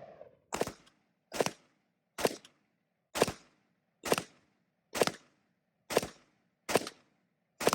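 Semi-automatic SAR-80 5.56 rifle fired nine times at a steady pace of roughly one shot a second, each shot followed by a short echo.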